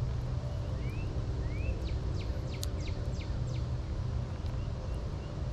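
A bird calling over a steady low hum: two short rising chirps, then a quick run of about six high notes that each slide downward.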